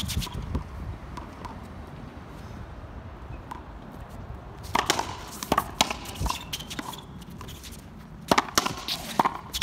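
Racquetball rally: sharp cracks of racquets striking the ball and the ball smacking the concrete wall. The hits come in a quick cluster about five seconds in and again near the end.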